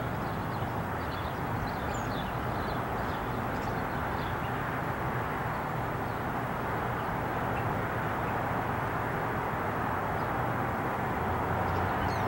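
Steady outdoor background noise, a low rumble and hiss, growing slightly louder near the end, with a few faint high chirps in the first few seconds and again near the end.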